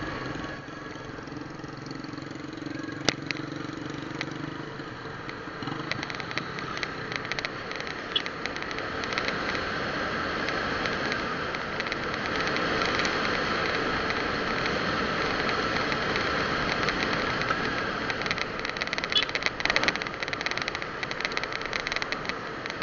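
Moving vehicle's engine hum with wind and road noise rushing over the microphone while riding along a road. A steady engine hum in the first few seconds gives way to louder wind and road rush with light rattling. There is one sharp click about three seconds in.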